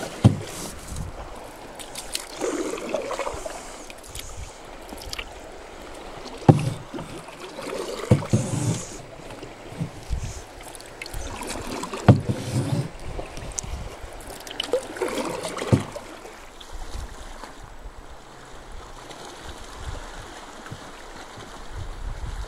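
Canoe paddle strokes in the water, a swish every two to four seconds, several of them starting with a sharp click. The strokes stop about two-thirds of the way through, leaving only faint water and wind noise as the canoe glides.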